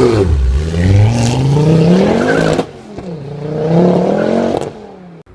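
Tuned 450 bhp Ford Focus RS accelerating hard, its engine pitch climbing through one gear. It breaks off sharply about two and a half seconds in at a gear change, climbs again through the next gear, then falls away much quieter near the end as the car draws off.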